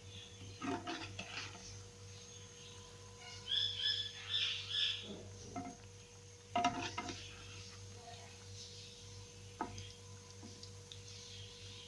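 Steady electrical hum with scattered knocks and clicks, and a brief burst of high chirping tones a few seconds in.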